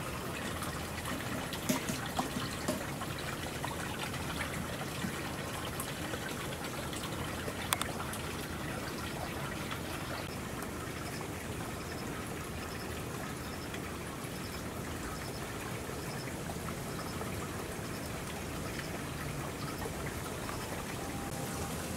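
Steady trickling of water running into a shallow pond, with a few sharp clicks in the first eight seconds and a faint, evenly repeating high ticking in the second half.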